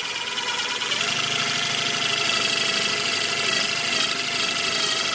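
Power drill running in reverse with the cutting end of a double-ended screw extractor bit pressed into a stripped hinge screw head, drilling out a starter hole for the extractor. A steady motor whine, settling to an even speed about a second in.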